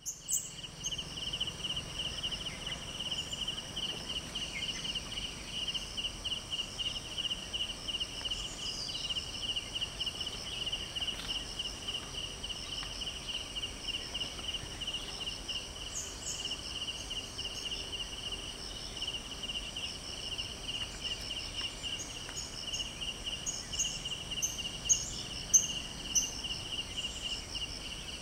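Insects chirping steadily in a fast, even pulsing trill over a thin high-pitched buzz, with a few sharper high chirps near the end.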